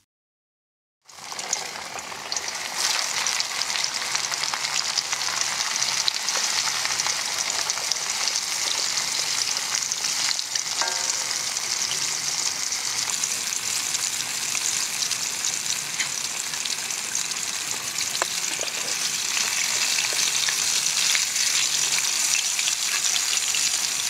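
Fish frying in hot oil in a pan: a steady, dense sizzle with constant fine crackling, starting about a second in after a moment of silence.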